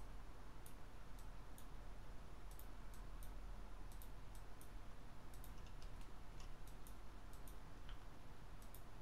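Computer mouse and keyboard clicks as vertices are grabbed and placed: short, irregular clicks over a low steady hum.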